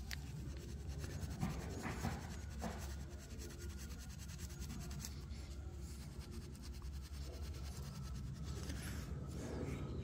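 Steel wool scrubbing the armature of a John Deere X340 starter motor: a quiet, uneven rubbing and scratching as the metal is cleaned of dirt and corrosion.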